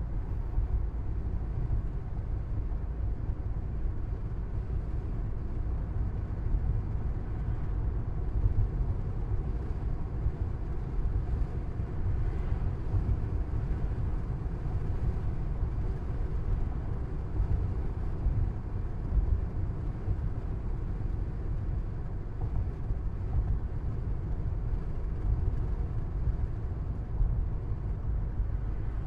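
A car driving along, heard from inside the cabin: a steady low rumble of tyres and engine.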